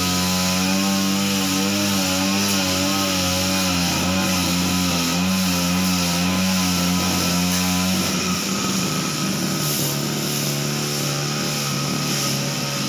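Backpack brush cutter's small engine running at high speed while trimming grass, its pitch wavering slightly; about eight seconds in, the engine speed drops and the sound turns rougher.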